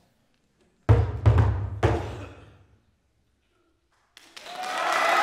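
A plastic trash can struck with mallets: four quick, booming hits about a second in, ringing out over the next second. Audience applause starts about four seconds in.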